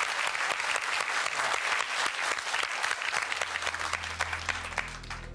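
Game-show studio audience applauding a box being opened. The applause dies away near the end as a low, steady musical tone comes in underneath.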